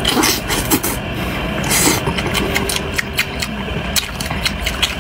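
Close-miked wet chewing and lip-smacking on boiled sausage, a string of irregular sharp mouth clicks over a steady low background hum.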